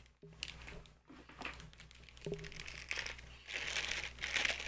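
Clear plastic bag crinkling as a snapback hat sealed inside it is handled, louder about three and a half seconds in.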